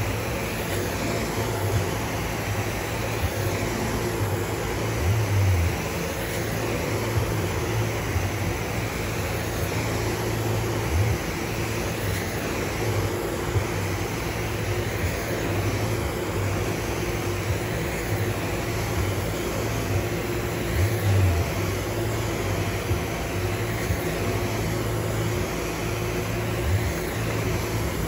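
Hot-water carpet extraction wand spraying and sucking across soiled commercial carpet, a steady vacuum rush with hiss, broken by a few brief low thumps as the wand is worked back and forth.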